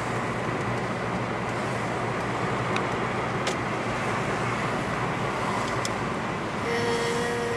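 Steady road and engine noise of a moving car heard from inside its cabin. Near the end, a steady tone sounds for a second and a half, and there are a couple of faint clicks midway.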